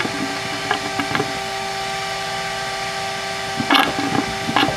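Shop vacuum with its filter removed running steadily with a pitched motor hum, pulling the water out of the old galvanized water line. A few knocks, and a short loud burst of noise about three-quarters of the way in.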